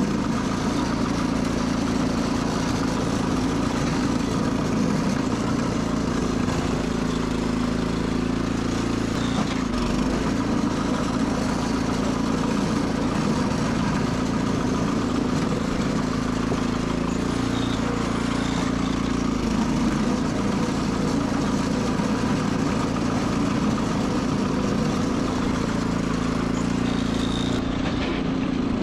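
Sears Suburban 12 garden tractor's engine running steadily.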